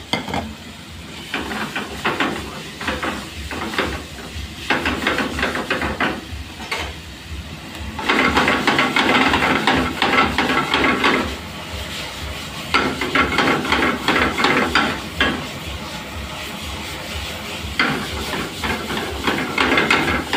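Vegetables sizzling in a hot wok over a gas flame, broken by repeated bursts of stirring and tossing, the utensil scraping and rattling against the pan.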